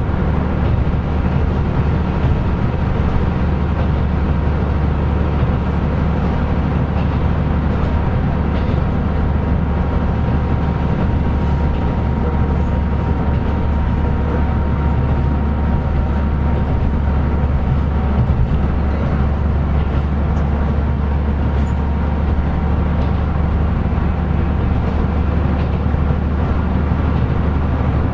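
KiHa 125 diesel railcar running steadily, its diesel engine giving a constant low drone under the even running noise, with a few faint ticks.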